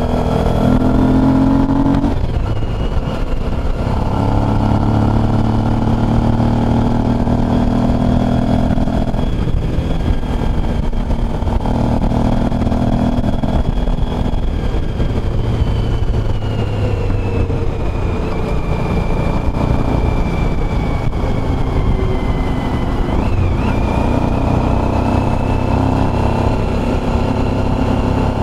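Motorcycle engine running under way, its note changing every few seconds with throttle and gear changes, over steady wind rush on the microphone.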